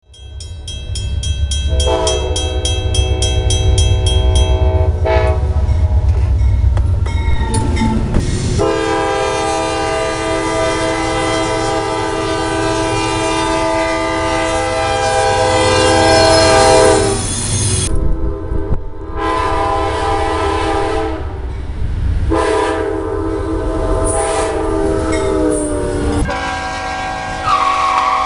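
Diesel locomotive air horn sounding a series of blasts, each a chord of several notes, one of them held for about nine seconds, over the low rumble of the locomotive. A fast high ringing runs through the first few seconds.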